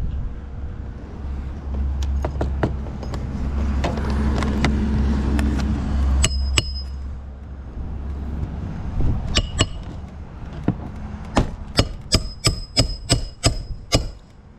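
A hammer driving nails with sharp, ringing strikes. A few scattered blows come first, then a quick run of about four strikes a second near the end.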